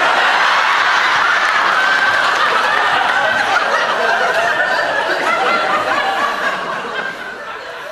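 Studio audience laughing, a dense crowd laugh that holds steady for several seconds and then fades away over the last two seconds or so.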